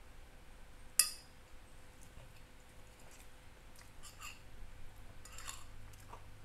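Metal spoon and fork on a glass plate: one sharp clink with a short ring about a second in, then lighter clicks and scrapes as food is pushed and broken apart on the plate.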